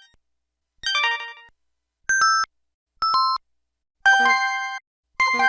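LG-SH130 mobile phone's system tones from its Yamaha MA-7 synthesizer chip, played one after another: a short chord chime about a second in, two quick two-note beeps falling in pitch, then a longer stepped multi-note chime, with another starting near the end.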